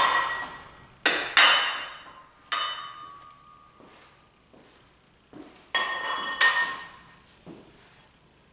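Metal weight plates clanking and ringing as they are pulled off and set down: a few separate clanks, bunched about a second in and again around six seconds in.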